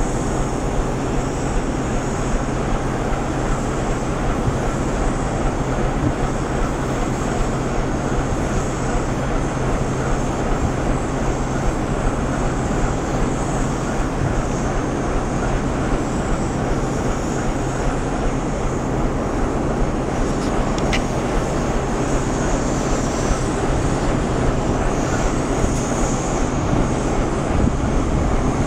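Steady mechanical drone of a standing electric passenger train's ventilation and cooling fans: a low hum under a high hiss, unchanging throughout.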